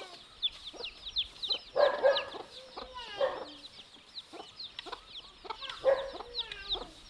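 Chickens clucking, with louder calls about two, three and six seconds in, over a stream of quick, high, falling chirps.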